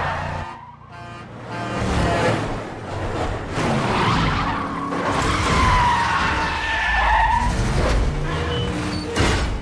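Car and truck engines running in an action-film chase sound mix, with a long tire squeal about halfway through.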